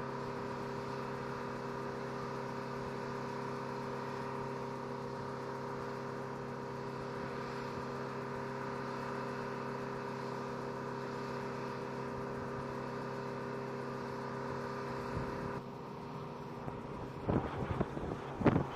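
Steady mechanical drone with several held tones, from power equipment on a parked C-130H Hercules whose propellers are not turning. About two seconds before the end it gives way to gusts of wind on the microphone.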